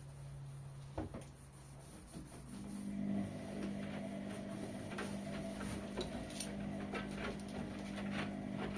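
Whirlpool washing machine running: a steady motor hum that shifts to a higher pitch about two seconds in, with light clicks and ticks over it.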